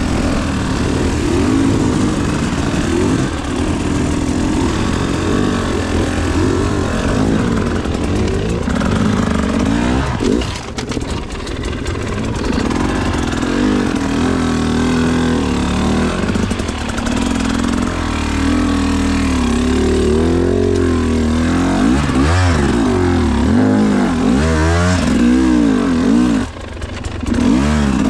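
GasGas EC300 TBI two-stroke enduro motorcycle engine being ridden, its pitch rising and falling constantly with the throttle. It drops off briefly about ten seconds in and again near the end.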